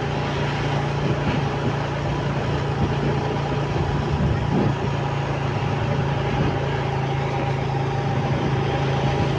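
Motorcycle engine running at a steady cruise while riding, a constant low hum under an even rush of road noise.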